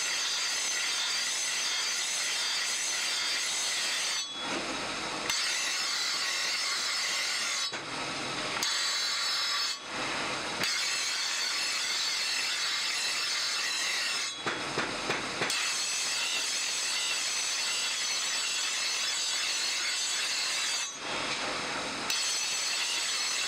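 Steel cleaver blade ground against a spinning motor-driven grinding wheel: a loud, steady, high grinding hiss. Five times it drops away for about a second, leaving a lower hum.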